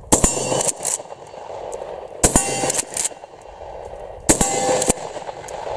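Three shots from a 12-gauge Uzkon LA887 lever-action shotgun firing 1 oz solid slugs, about two seconds apart, each followed by a short metallic ringing as a slug strikes the steel target. Sharp clicks between the shots come from the lever being worked.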